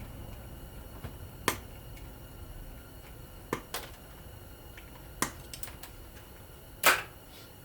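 A few sharp clicks and taps of small metal parts and tools being handled while a ceiling fan is taken apart, spaced a second or two apart, the loudest near the end.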